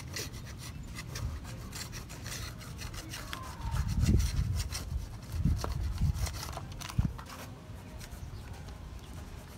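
Spline roller being rolled along the channel of an aluminium window screen frame, pressing the rubber spline into the groove: a scraping, rubbing sound with many small clicks, and a few dull thumps in the middle.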